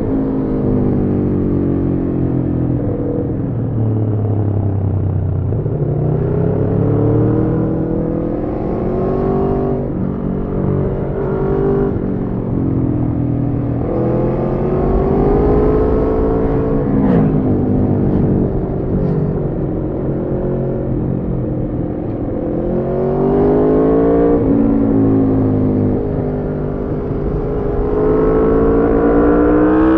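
Aprilia Tuono V4's V4 engine through an Arrow slip-on exhaust with the catalytic converter removed, accelerating hard several times and easing back off the throttle between pulls. There is a short sharp crack about halfway through.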